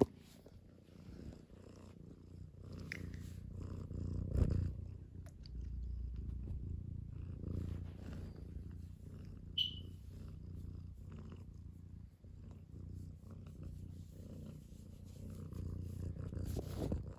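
Tabby cat purring close up as it is stroked, a steady low rumble. A brief high squeak comes about ten seconds in.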